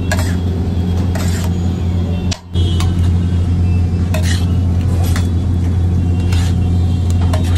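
Metal spatulas scraping and clacking on a large iron tawa, in irregular strokes about once a second, over a loud steady low kitchen hum. The sound drops out briefly about two and a half seconds in.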